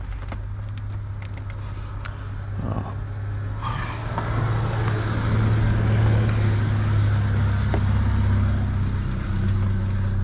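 A steady low mechanical hum that swells with a rushing noise from about four seconds in, with a few light clicks near the start.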